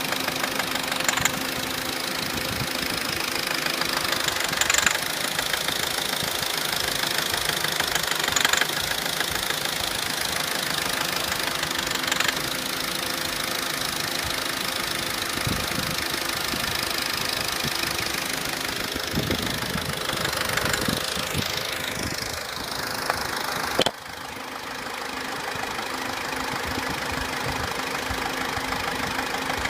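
Opel Corsa C engine running at idle with a tapping, rattling noise over the steady hum, plus a few sharper clicks in the first half. About three-quarters of the way through the sound drops suddenly, then the engine runs on steadily.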